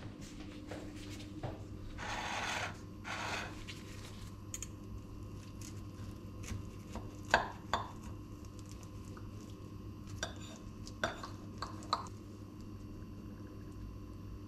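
Stainless knife and fork on a ceramic plate cutting a toasted tortilla: two short scraping strokes early on, then a few sharp clinks of metal on the plate. A low steady hum runs underneath.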